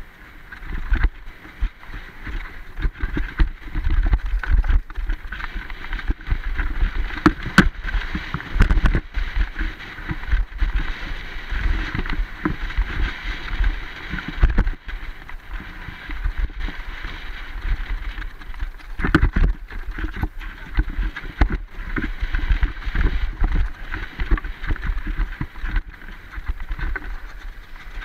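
Mountain bike rolling fast down a dirt singletrack, heard through an action camera riding on the bike or rider: a continuous rumble of tyres and wind on the microphone, with frequent knocks and rattles as the bike hits bumps.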